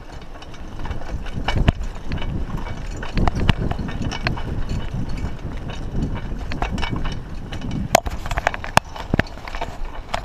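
Raleigh Ascent mountain bike ridden over a rough dirt trail: the tyres rumble on the ground while the frame and chain rattle and click over bumps, with two sharp knocks about eight seconds in.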